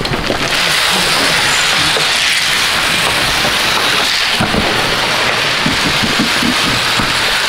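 Dry feed pouring out in a steady rain-like hiss, with a few dull knocks in the second half.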